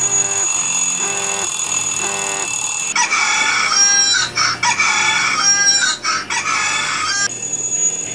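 Phone alarm going off: a short repeating electronic tune, then, about three seconds in, a rooster crowing repeatedly as the alarm tone.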